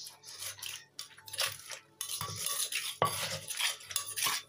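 Wooden pestle pounding in a clay mortar while a metal spoon scrapes and turns the ingredients, mixing Thai papaya salad. Uneven knocks about once a second, with scraping between.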